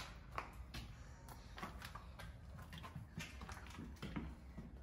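Footsteps walking over a debris-strewn floor: irregular taps and scuffs, several a second.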